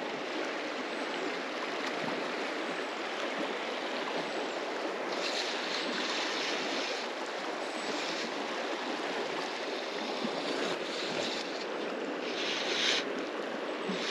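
River current running over a shallow riffle, a steady rushing of water. A few brief hissing swells rise above it about five seconds in and near the end.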